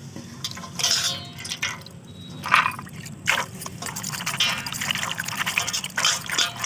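Hands swishing and rubbing raw peanut kernels in water in a steel bowl, washing off loose skins and soil: a few separate splashes, then steadier swishing near the end.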